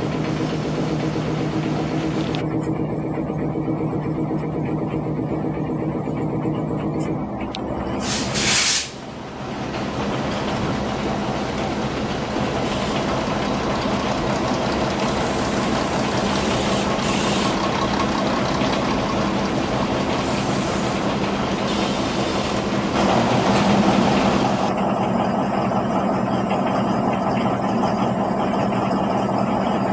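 Diesel passenger train engines running steadily, first the railcar's and later the locomotive's, whose note comes in heavier about 23 seconds in. About eight seconds in there is a short, loud burst of hissing air.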